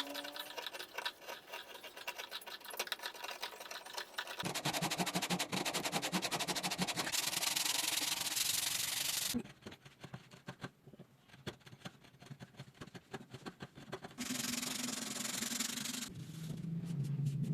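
Wood being sanded in quick rubbing strokes. It is loudest for about five seconds from about four seconds in and again for a couple of seconds near the end, with lighter, sparser strokes in between.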